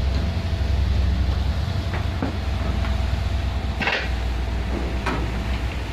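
A 250 kg poultry feed mixer running with a steady low hum and a faint steady whine, with a few short knocks and rattles, the loudest about four seconds in and another about a second later.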